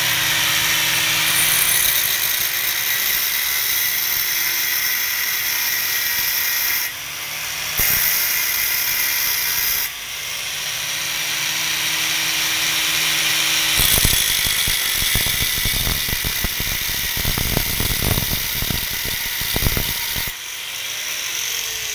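Angle grinder with a thin cutting disc running at speed with a steady high whine. For the last third it bites into a small piece of metal, throwing sparks, and the whine turns into a rough, grating cutting noise. This eases off near the end.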